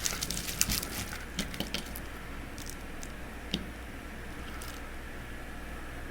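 Light metallic clicks and taps from handling chrome sockets on their rail, several close together in the first two seconds and one more about three and a half seconds in, over a steady low hum.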